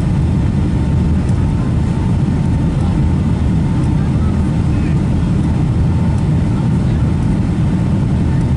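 Steady cabin noise inside a Boeing 757-200 descending on approach: a deep, even roar of airflow and engines, with a faint steady tone above it.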